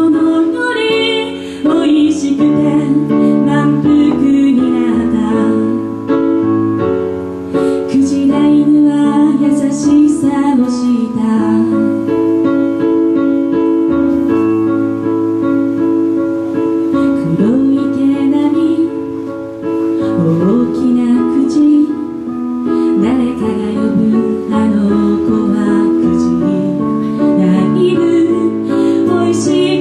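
A woman singing live while she accompanies herself with piano sounds on an electronic keyboard; her voice slides up into notes a few times.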